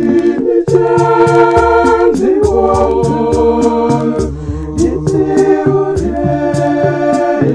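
Shona gospel song sung by one woman's voice layered into several harmonising parts, holding sustained chords that change every second or so, over a steady beat.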